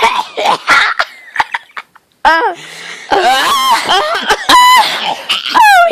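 A person making exaggerated fake moaning and squealing noises for comic effect: short breathy bursts, a brief pause about two seconds in, then long, very high pitched squeals that bend up and down.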